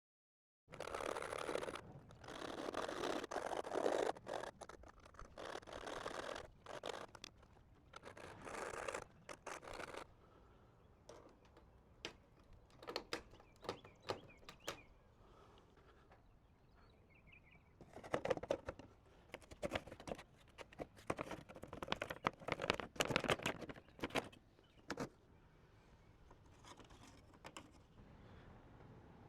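Scraping and rubbing in bursts, with scattered sharp knocks and taps, from a soffit panel being worked back into place.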